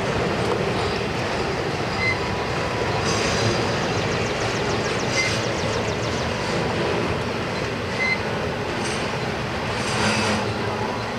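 A train rolling past on steel rails, a steady loud rolling noise, with brief high wheel squeals recurring about every two seconds.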